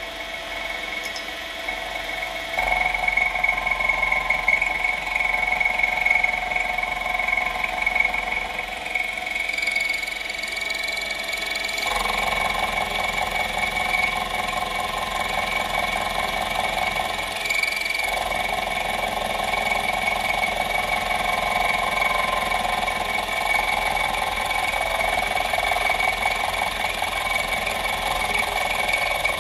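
Small milling machine with a 500 W motor running, its end mill cutting Uddeholm Sleipner tool steel at low spindle speed. There is a steady whine over the noise of the cut. The sound gets louder about three seconds in and changes tone twice, at about twelve and about eighteen seconds.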